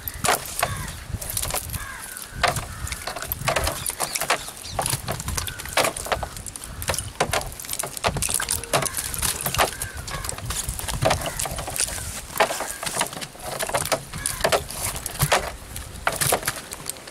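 A wet fishing net with fish caught in its mesh being hauled in and dropped into a plastic tub: irregular knocks and slaps of net and fish landing, over a low rumble.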